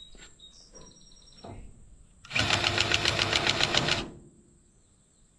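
Powered grease gun running for nearly two seconds with a rapid, even pulsing as it pumps grease into a baler grease fitting, then stopping.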